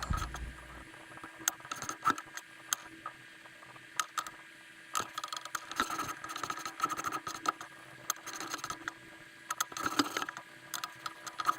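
Light, irregular scraping and clicking from a rubber rim-brake pad being rubbed flat with a nail buffer, with a faint steady hum behind.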